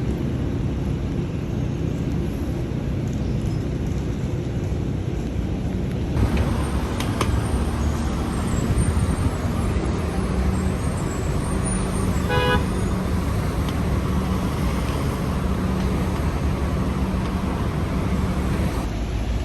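Steady city street traffic noise, the rumble of passing cars and buses, with one short horn beep about twelve seconds in.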